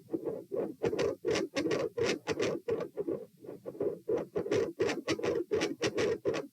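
Heart sounds through a stethoscope, at about 90 beats a minute, carrying a loud mid-systolic murmur: a harsh whooshing burst with each beat that gets louder and swells and fades in phases. It is heard with the patient lying supine.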